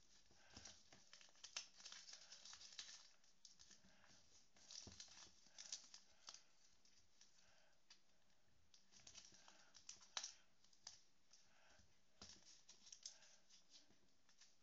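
Faint rustling and crinkling of a sheet of paper being folded and creased by hand, coming in short spells of crackle and small clicks.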